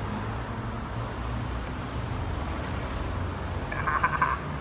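Steady low hum of urban traffic. A brief high, rapidly pulsing chirr comes about four seconds in.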